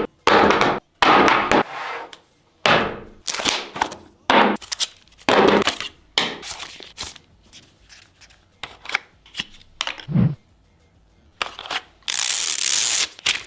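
A rapid string of short, sharp swishes and knocks, with a deep thump about ten seconds in and a longer rushing burst near the end.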